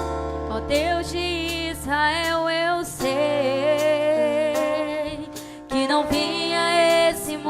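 Worship band music: a female voice sings long held notes with vibrato over guitar, bass and drums.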